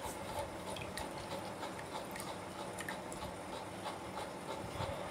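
Hand swishing and rubbing idli rava in water in a steel bowl to wash it: faint sloshing and grainy rubbing, with a few small clicks.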